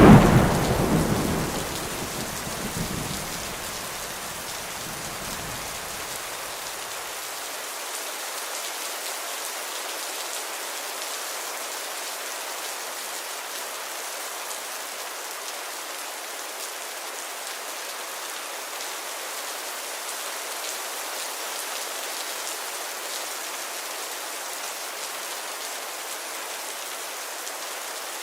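Heavy rain falling steadily, with a thunderclap right at the start whose rumble dies away over the first several seconds.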